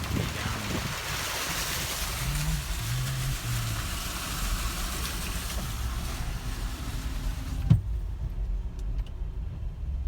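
Car driving, with steady road and wind hiss and low rumble; about three-quarters of the way through there is a sharp thump, after which the hiss drops off and only the low rumble goes on.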